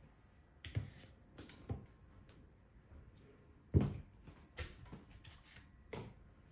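Irregular knocks and thumps as a barefoot person steps onto a mini stepper and its pedals take her weight, about five of them, the loudest a little before four seconds in.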